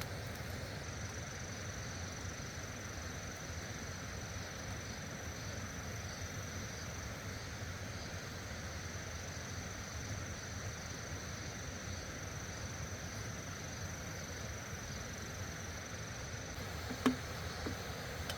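Steady rush of stream water, with an insect's continuous high-pitched trill over it that stops near the end. One short click shortly before the end.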